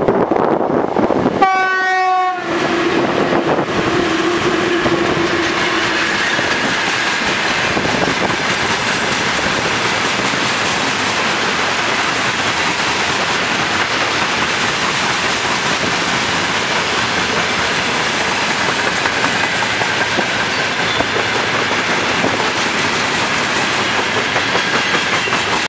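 VL11 electric locomotive sounding a short horn blast about one and a half seconds in as it hauls a freight train past. The long string of tank cars and open wagons then rolls by with a steady wheel-on-rail noise.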